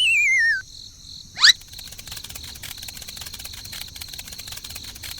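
A wavering whistle slides down in pitch and stops about half a second in, followed by a quick, loud rising zip about a second and a half in; after that, steady cricket-like insect chirping continues.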